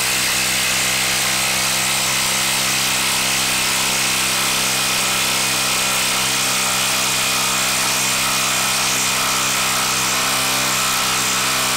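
Milwaukee 2850-20 M18 brushless 1/4-inch hex impact driver hammering continuously at a steady, even pitch as it drives a 4.5-inch lag screw into a wood log.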